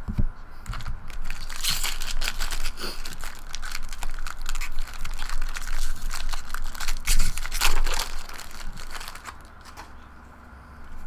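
Foil trading-card pack wrapper crinkling and tearing as it is handled and opened, a dense run of irregular crackles that dies down near the end.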